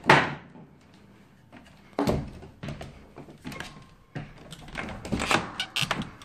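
Someone climbing a wooden folding attic ladder: irregular thumps and clicks of feet and hands on the wooden treads. There is one loud knock at the start, another about two seconds in, and a quick cluster near the end.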